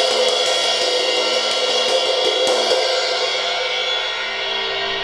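Ingriss XIII cymbal tapped softly and repeatedly with a wooden drumstick, about three or four strokes a second, then left to ring and fade after the last stroke near three seconds in.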